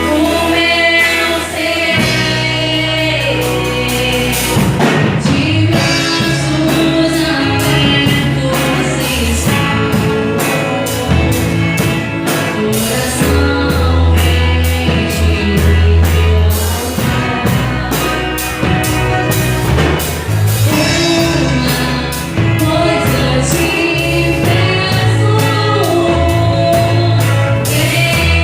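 Christian worship song played by a band: singing over sustained bass and a steady drum beat.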